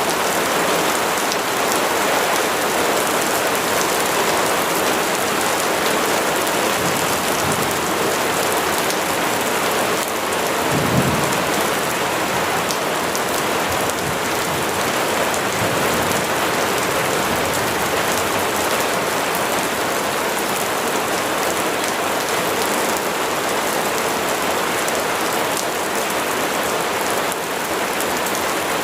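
Steady rain falling, with a brief low thump about eleven seconds in.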